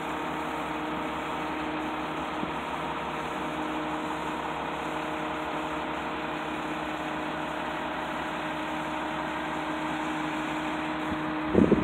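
Bucket truck's engine running steadily with a steady hum while it powers the boom to lower the bucket. A burst of loud knocks comes right at the end.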